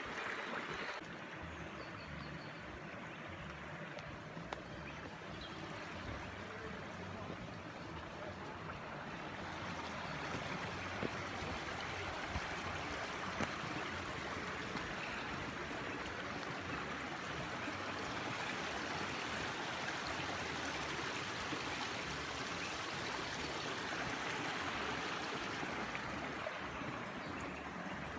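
Rainforest creek running over rocks: a steady rush of flowing water that grows a little louder partway through.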